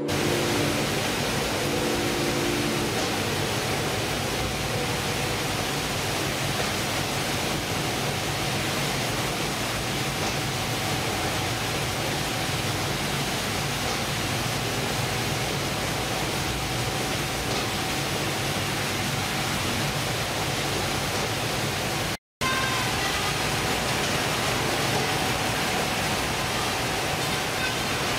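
Steady machinery noise of a shipboard fish-processing line, with conveyors and processing machines running as a constant hiss and hum and a faint steady tone. It cuts out for a moment about 22 seconds in, then resumes unchanged.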